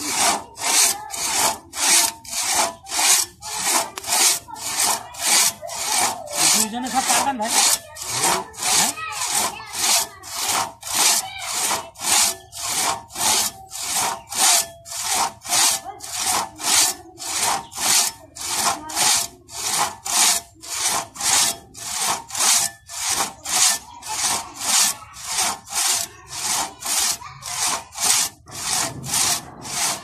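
Two-man crosscut saw being pulled back and forth through a thick log, each stroke a rasping rip through the wood, at a steady rhythm of about two strokes a second.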